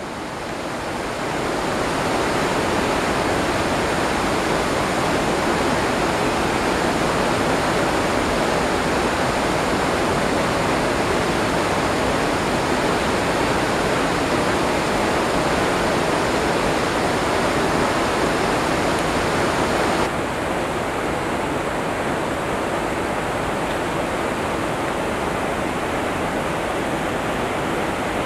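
Steady rush of river water running over rocks and rapids, a constant hiss of moving water; it drops slightly in level about two-thirds of the way through.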